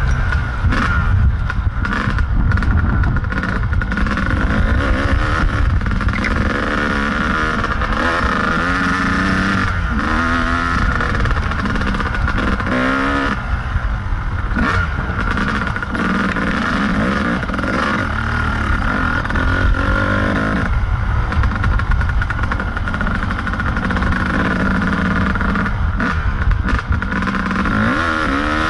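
Kawasaki KDX220 two-stroke dirt bike engine running under way on a trail, revving up and down over and over as the throttle opens and closes, with heavy wind rumble on the microphone.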